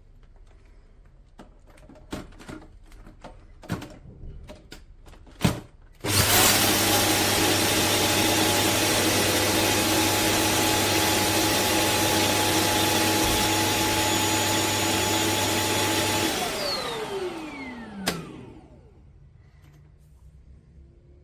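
A few handling clicks, then a Shark Detect Clean & Empty cordless vacuum's motor starts about six seconds in and runs steadily and loudly with a high whine for about ten seconds. It then switches off and winds down, falling in pitch, with a sharp click as it stops.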